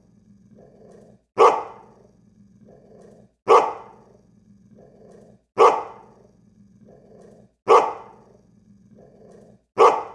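A dog barking once about every two seconds, five barks in all, each followed by a quieter, lower growl before the next. The barks repeat at exactly even spacing, a looped dog-bark sound effect.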